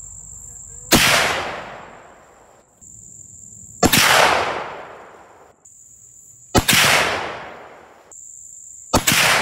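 Four shots from a .50 caliber muzzleloader rifle, about three seconds apart, each a sharp report that fades out over a second or more.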